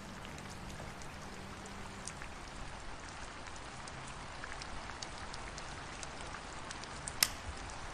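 Rain falling steadily, with scattered drops ticking throughout. A single sharp click sounds about seven seconds in.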